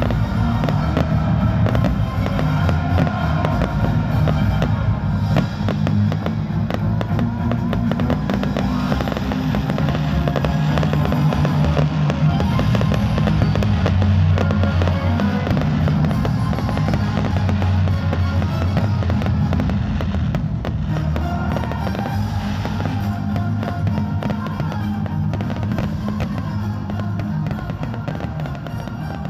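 Fireworks crackling and popping without pause, over music with a steady low bass, easing off slightly near the end.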